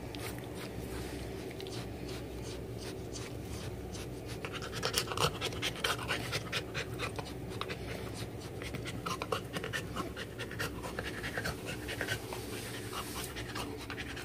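Cocker spaniel panting, with a run of quick, short breath sounds from about four seconds in.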